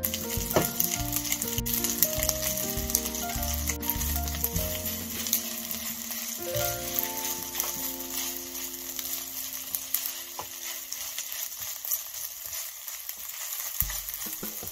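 Rice, onion and crab meat sizzling in a hot nonstick frying pan while a silicone spatula stirs the fried rice, with light clicks of the spatula against the pan.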